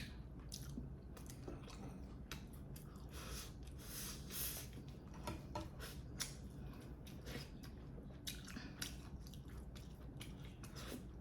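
A person chewing food with mouth close to the microphone: quiet, irregular wet clicks and soft crunches.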